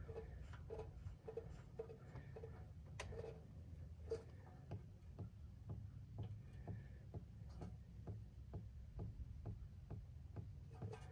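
Engine oil dripping from the opened drain valve of a Briggs & Stratton Vanguard big-block engine into the drain pan below during an oil change: faint, regular ticks, about two a second at first and coming a little faster later on.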